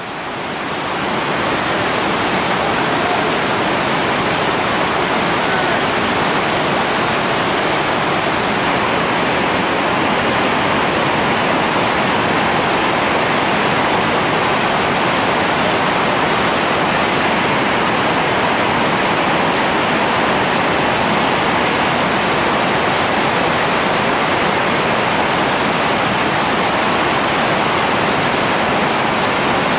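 Steady, loud rushing of big whitewater rapids. The noise swells up over the first second or two, then holds even.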